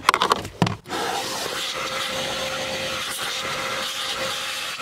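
Vacuum cleaner with a narrow nozzle running steadily with a faint whine. It is sucking leaves out of a car's cabin air filter housing so they cannot fall into the blower motor. It starts about a second in.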